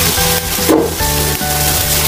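Background music with a bass line stepping between notes, over the steady hiss of pork sizzling in a wok. A brief rubbing knock comes about two-thirds of a second in.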